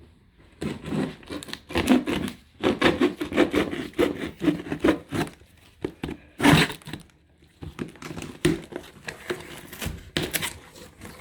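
Cardboard box and packaging being opened by hand: irregular scraping, rustling and tearing, with one louder burst about six and a half seconds in.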